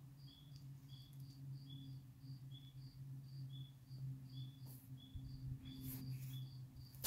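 Spring peepers calling: short, high peeps repeating a few times a second at two slightly different pitches, from more than one frog. A steady low hum runs underneath, and a few brief rustles come in after about four and a half seconds.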